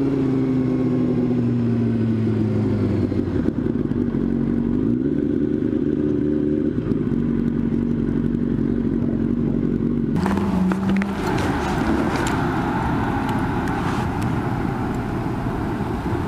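Sport motorcycle engine heard from the rider's seat while riding slowly. The engine note falls and shifts up and down in pitch in steps as the speed changes, and about ten seconds in a rougher hiss joins it.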